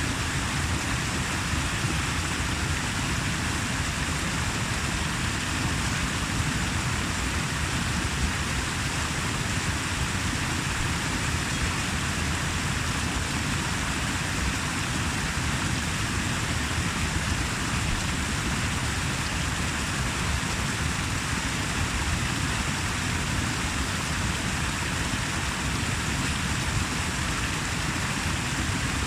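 Rushing water making a steady, even noise with a deep rumble under a broad hiss, unchanging throughout.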